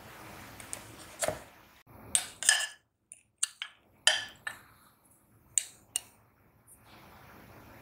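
Plastic clicks and knocks as the lid of an electric food chopper is taken off, then a spoon scraping and knocking through coarsely ground red lentils in the plastic bowl: a string of separate sharp clicks, the loudest about two and a half and four seconds in.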